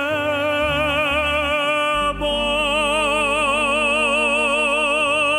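A male operatic voice sings long held notes with wide, even vibrato over a musical backing. The voice breaks briefly about two seconds in, then holds again until the phrase ends.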